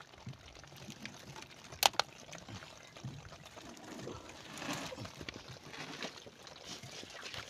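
Water trickling and splashing as wet live lobsters and netting are handled in a plastic basket, with one sharp click about two seconds in.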